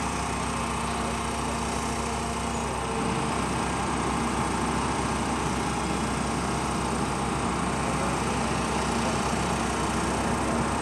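Steady engine noise, a small-engine drone that gets a little louder about three seconds in.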